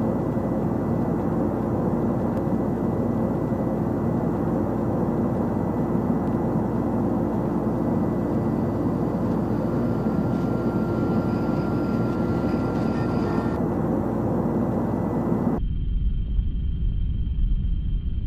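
Loud, steady rushing noise with a low hum. About fifteen seconds in it cuts suddenly to a duller, muffled noise with a steady high whine.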